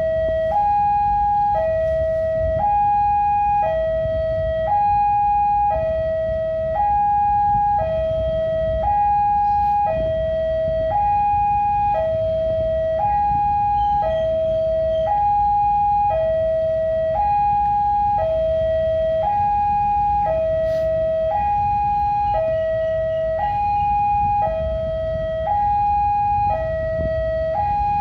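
Railway level-crossing warning alarm sounding while a train is due: an electronic two-tone signal alternating low and high, about a second on each note, steady and unbroken. Underneath it runs a low rumble.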